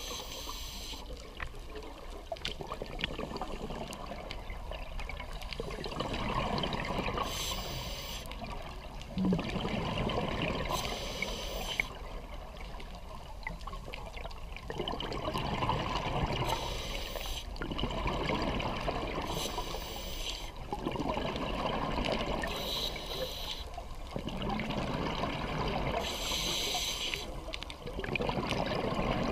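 Scuba regulator breathing underwater: a hissing inhale through the regulator about every three to four seconds, each followed by the gurgling rush of exhaled bubbles.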